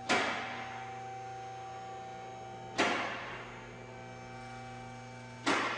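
Steady electrical mains hum, broken three times by a sharp knock that rings out briefly, the knocks spaced about two and a half seconds apart.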